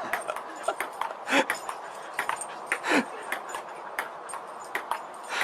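A dog makes two short whimpering calls, about a second and three seconds in; the second slides down in pitch. Many short clicks sound between them.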